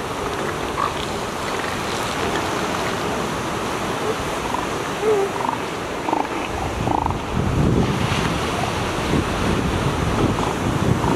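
Northern elephant seals in a packed beach colony giving scattered short calls and low grunts, over steady surf and wind noise.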